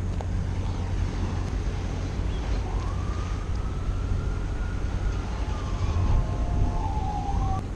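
Wind rumbling on the microphone, with a faint distant siren wailing: it rises about two and a half seconds in, holds, then falls away near the end.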